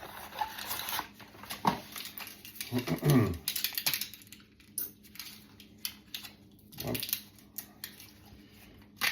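A dog makes a short vocal sound that falls in pitch, about three seconds in, amid scattered light clicks and knocks of small things being handled.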